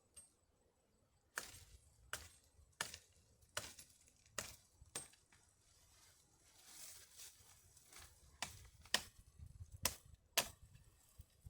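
A run of sharp chopping knocks, roughly one every 0.7 seconds, then a pause of a few seconds, then a few more.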